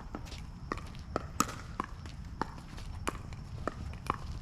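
Pickleball rally: paddles hitting the hollow plastic ball back and forth in quick succession, a sharp pop roughly every half second, with fainter scuffs of players' feet on the court.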